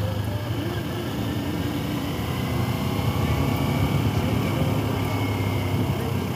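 Sport motorcycle's engine running steadily while riding, with a constant rush of wind and road noise.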